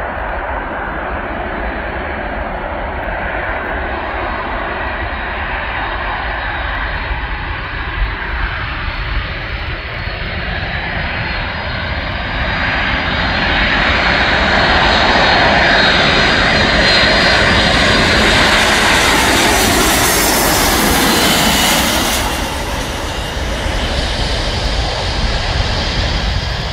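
Boeing C-17 Globemaster III's four Pratt & Whitney F117 turbofans on final approach: a steady jet whine and rumble that grows louder and brighter as the aircraft nears, is loudest about halfway through, then eases a little near the end as it settles toward the runway.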